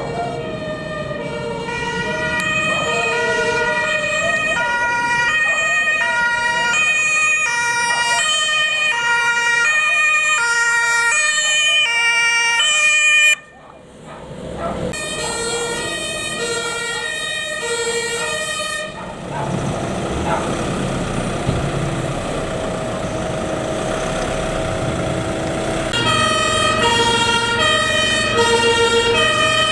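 German fire service vehicles' two-tone Martinshorn sirens stepping back and forth between a high and a low note, over the trucks' engines. About halfway through, the sound drops out suddenly for a moment; later the stepping pauses for several seconds, leaving engine noise, before a siren starts again near the end.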